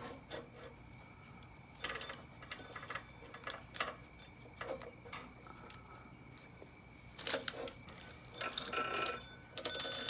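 Metal roller chain clinking and rattling as it is handled and fitted to the clutch sprocket. It is a few scattered clicks at first, turning into denser rattling in the last few seconds.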